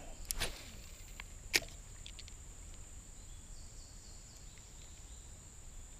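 A spinning rod being cast and retrieved: a few sharp clicks in the first second and a half, the loudest about a second and a half in, as the reel's bail flips over. Under them runs a steady high-pitched insect drone.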